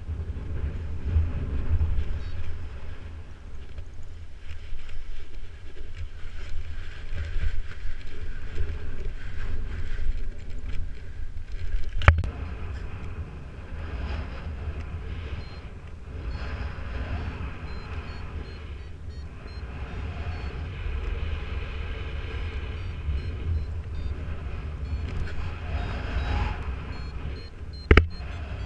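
Wind buffeting the microphone in flight, an uneven low rumble, with a flight variometer beeping faintly and high-pitched in short repeated tones. Two sharp clicks, one about twelve seconds in and one near the end.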